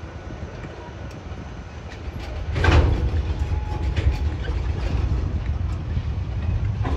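Several TasRail diesel locomotives passing at slow speed, their engines making a steady low rumble. The rumble gets louder about two and a half seconds in, with a brief loud burst of noise, and a few faint clicks follow.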